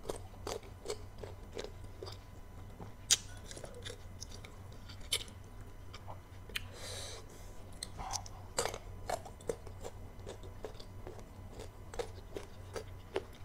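Close-up crunchy chewing of slices of unripe green mango dipped in fermented-fish chilli sauce. Many sharp, irregular crunches and wet clicks, with a short hissing slurp about halfway through.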